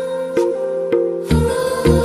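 Instrumental background music: a slow melody of separate notes over a held tone, with deep bass notes about a second in and again near the end.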